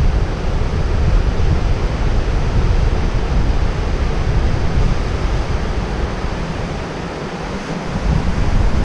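Ocean surf breaking on a beach, with wind buffeting the microphone and adding a heavy, fluttering low rumble. The noise eases a little about seven seconds in, then rises again.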